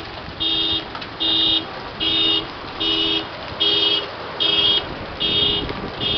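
A car alarm sounding in steady, evenly spaced pulses, a little over one a second, over the steady hiss of hail and heavy rain.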